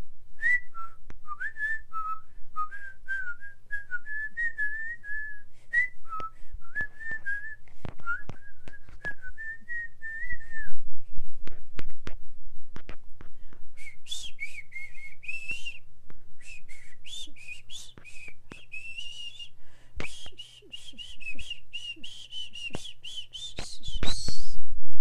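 A person whistling a wavering tune: lower for about the first ten seconds, then after a short pause a higher passage that ends in a rising whistle near the end. Scattered sharp taps are heard alongside.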